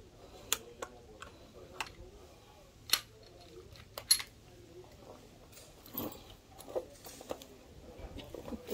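Sharp metallic clicks and clacks of a 9mm Canik pistol being worked by hand to clear a stuck round, about half a dozen in the first four seconds, the two loudest about three and four seconds in. Softer, duller handling sounds follow around six to seven seconds in.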